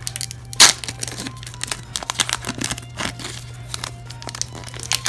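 Foil wrapper of a Pokémon card booster pack crinkling and tearing as fingers rip it open, with one sharp tear about half a second in and irregular smaller crackles after.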